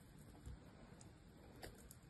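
Small knife shaving curls off a block of dry soap: a few faint, crisp ticks and crackles as the blade cuts through.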